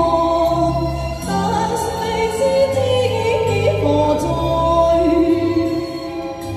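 A woman singing a Chinese pop song live into a microphone over a recorded backing track, both amplified through a street PA speaker. The melody wavers and glides, with held bass notes underneath.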